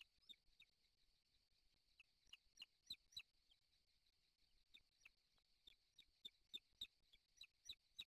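Faint, thin, high peeping of booted eagle chicks: short chirps, each dropping in pitch, several a second in an irregular run, over a steady faint high hiss.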